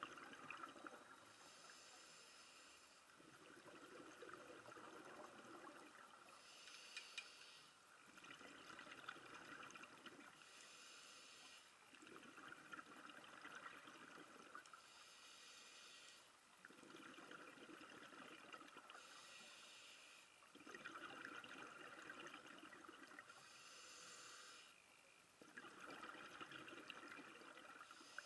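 Scuba diver breathing through a regulator underwater, faint: a short hiss on each inhale, then a longer bubbling rush of exhaust bubbles on each exhale, about six slow breaths.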